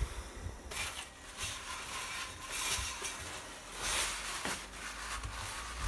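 A cloth rag rubbing over the metal face of the compressor pump casing in several wiping strokes, a soft rustling.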